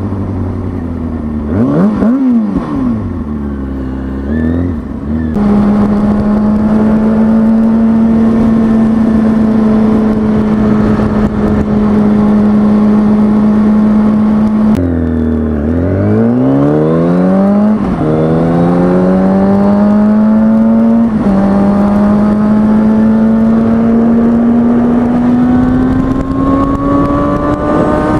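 2003 Kawasaki ZX-6R 636 inline-four sport-bike engine under way with wind noise. The revs dip and climb twice in the first few seconds, hold steady for about ten seconds of cruising, then drop and pull up again through two upshifts, climbing toward the end.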